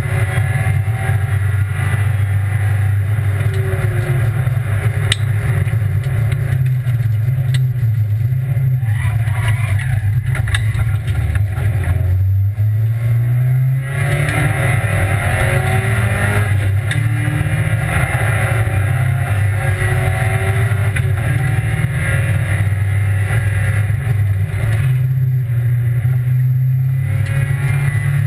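Rally car engine heard from inside the cabin, running hard at high revs through a special stage. It eases off briefly about twelve to fourteen seconds in, then pulls hard again.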